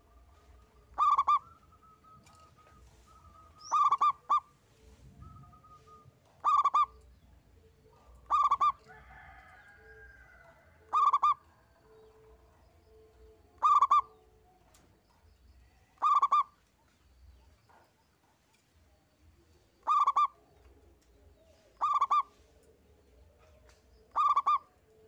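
Zebra dove (perkutut) cooing: short staccato phrases, about ten in all, repeated every two to three seconds with one longer gap of about four seconds two-thirds of the way through. Fainter bird calls carry on underneath.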